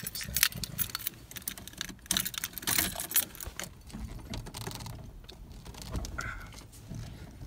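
Keys hanging in the ignition jingling, light metallic clinks as the steering wheel is turned, in clusters right at the start and again about two to three seconds in, lighter after that.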